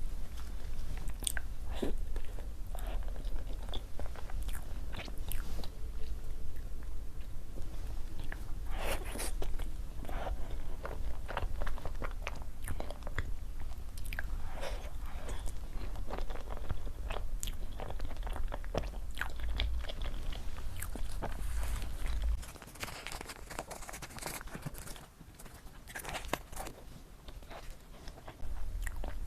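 Close-miked eating: a person biting and chewing soft desserts and pastry, with irregular wet mouth clicks and smacks. A low background hum underneath drops out about three-quarters of the way through and comes back near the end.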